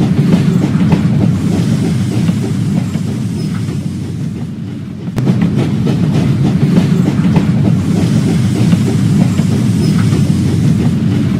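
Electric toy train running on plastic track: a steady rattling whir of its small motor and wheels. It fades somewhat about three to five seconds in, then jumps back to full loudness suddenly about five seconds in.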